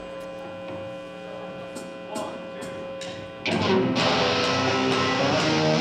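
Electric guitar through a stage amplifier: a steady amp hum and four evenly spaced faint clicks, then about three and a half seconds in a loud distorted chord rings out and is held.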